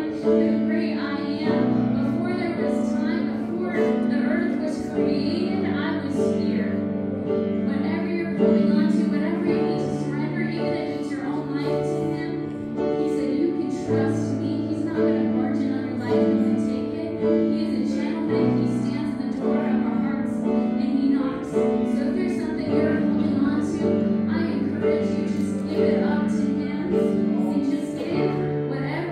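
Live worship band playing: piano, electric bass and a drum kit with regular cymbal strokes, with women's voices singing over it.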